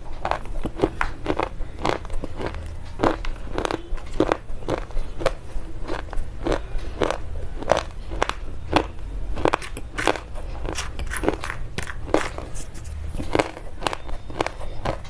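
Slate pencils being bitten and chewed, a steady run of sharp crunches, about two a second.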